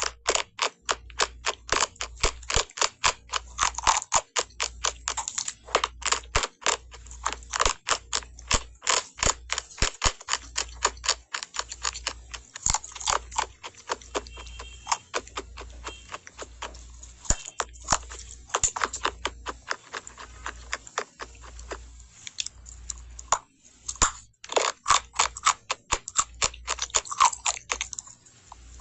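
Close-up crunching and chewing of compressed cornstarch, a fast run of sharp crackles that keeps coming with only brief pauses.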